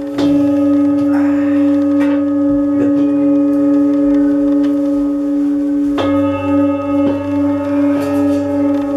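Brass singing bowls ringing: one steady low tone with a higher overtone, renewed by fresh strikes every few seconds. A stronger strike about six seconds in sets the tone wavering.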